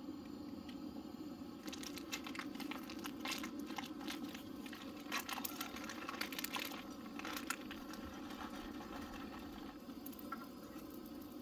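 Coleman two-burner propane camp stove running with a steady low rush, while butter crackles and sizzles in a frying pan. Dry rice is poured from its carton into the pan, then scraped and stirred with a wooden spoon near the end.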